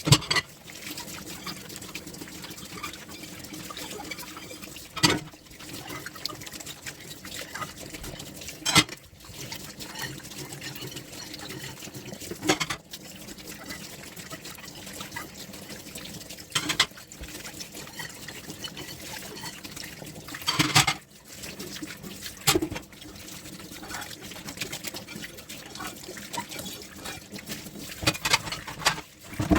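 Dishwashing at a kitchen sink: water running and trickling steadily, with a clink or knock of dishes every few seconds.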